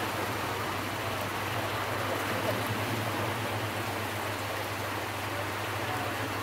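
Steady rushing noise of wind and choppy sea water, with a low steady hum underneath.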